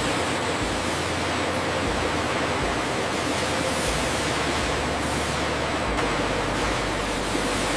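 Steady, even rushing hiss with no distinct events, holding at a constant level throughout.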